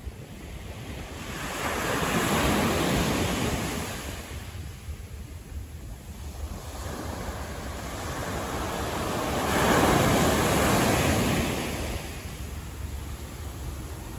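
Two road vehicles passing by on a city street, their tyre and engine noise swelling and fading over a couple of seconds each: the first a couple of seconds in, the second near the end, over a steady low traffic hum.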